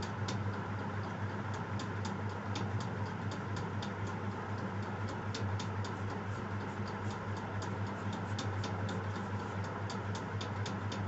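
Graphite pencil scratching on paper in quick, irregular short strokes while outlining a drawing, over a steady low hum.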